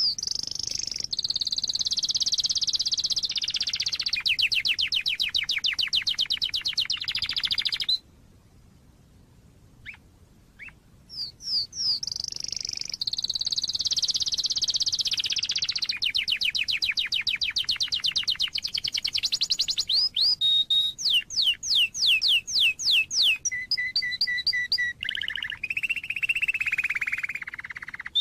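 Domestic canary singing: long runs of fast, high trills, a pause of about three seconds partway through, then more trills, a few quick sweeping notes, a short repeated whistle and a lower warble near the end.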